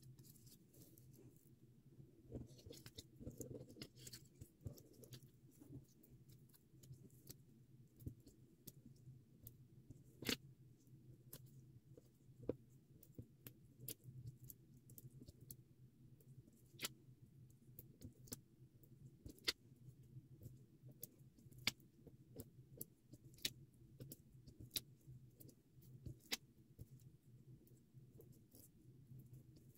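Faint paper-craft handling: scattered light clicks and taps as fingers pick 3D foam squares off their backing sheet and handle paper flower cut-outs, over a low steady hum.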